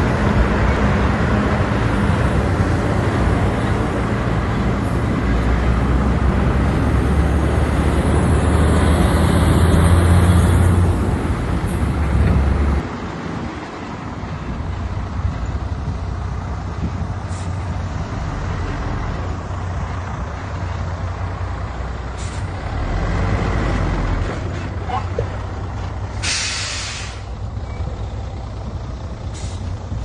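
Diesel engine of heavy earthmoving machinery running, loud and low at first, then quieter from about 13 s in. A short burst of hiss lasting about a second comes near the end.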